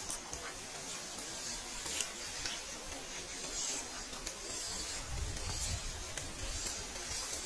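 Steady hiss of a running forest creek, with scattered small clicks. A low rumble comes in about five seconds in.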